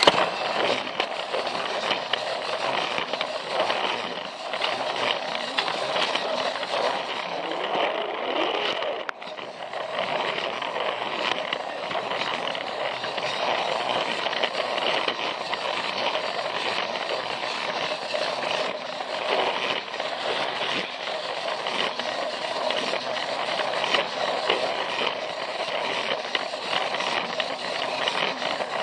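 A battery-powered Plarail toy train running along plastic track: a steady rattling and clicking of its small motor, gears and wheels, dipping briefly about nine seconds in.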